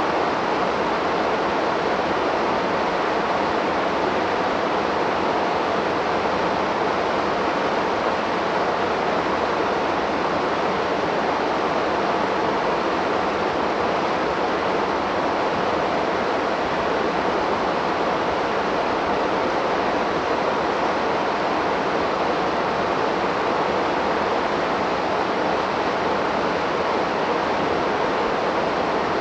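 Waterfall on a river: a steady, even rush of falling water that does not change.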